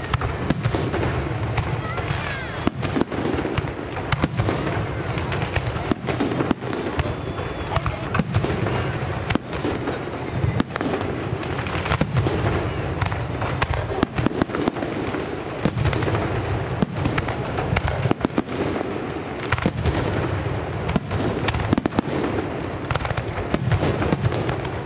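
Aerial fireworks display: many shells bursting in rapid, overlapping succession, sharp bangs coming every fraction of a second without a break.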